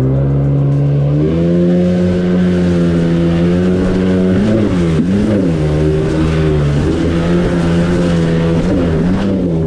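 Jet ski engine running at speed, its pitch stepping up right at the start and again about a second in as the throttle opens, dropping back a little later on, and wobbling up and down twice as the revs change.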